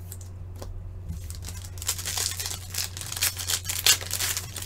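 Plastic wrapper of a trading-card pack being torn and crinkled, a dense crackly rustling that starts about two seconds in, over a steady low electrical hum.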